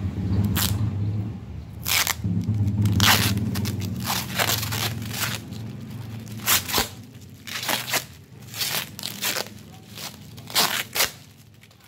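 Shipping parcel being torn open by hand: repeated short rips and crunches of packing tape and wrapping. A low steady hum sits under the first half and fades out.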